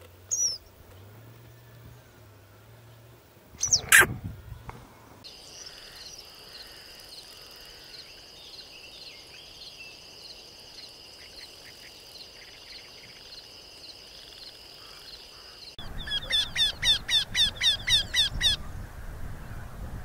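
Small songbirds calling. There is a short high call at the start and a loud, sharp falling call about four seconds in. A steady high trill follows for about ten seconds, and near the end comes a loud run of about ten quick repeated notes, around three or four a second.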